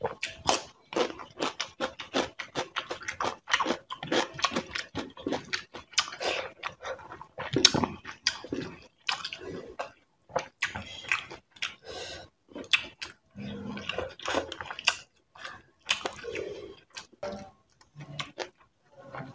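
Close-up chewing, biting and wet mouth smacks of someone eating, many short clicks a second.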